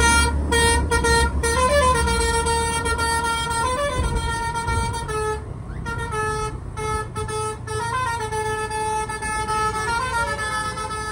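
Bus telolet horn with a 'V4' set of tones, playing a melody of held notes. The notes are broken by short stops and joined by quick slides up and back, over a low traffic rumble.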